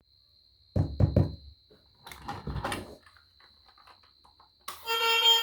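Three quick, loud knocks, then about a second of softer clattering and rustling. Music with sustained notes starts near the end.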